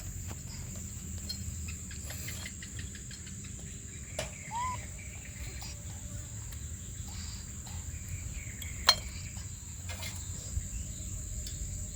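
Steady high-pitched insect chorus, with scattered clicks and knocks over it, the loudest about nine seconds in.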